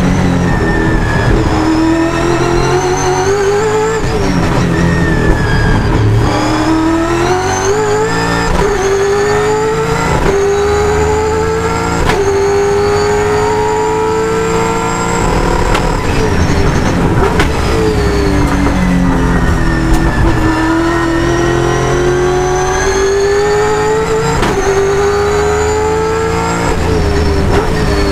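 A V8 touring car's race engine at full power, heard from inside the cockpit. It revs up through the gears with a sharp drop in pitch at each upshift, then falls away as the car brakes and shifts down, about halfway through and again near the end.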